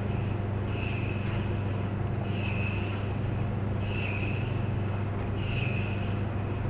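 Clothes dryer running: a steady low motor hum, with a short higher-pitched squeak recurring about every second and a half, six times here, and faint scattered clicks.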